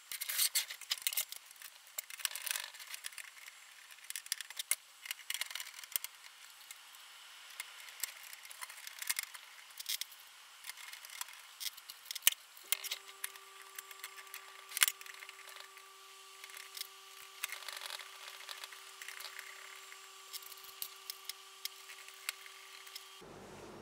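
Handling noise from reassembling an opened stereo amplifier: scattered clicks, taps and rattles of cables, parts and a screwdriver against the metal chassis. A faint steady tone comes in about halfway through and holds.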